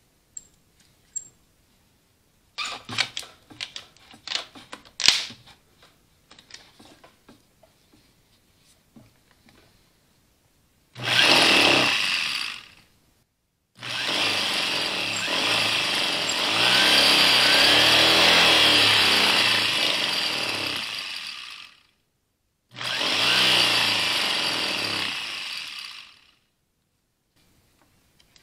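Rebuilt Allis-Chalmers WD45 tractor starter motor on a bench test: a few clicks and knocks, then the motor spins up three times, the middle run about eight seconds long, the last two winding down at the end. It runs freely, so the rebuilt starter works.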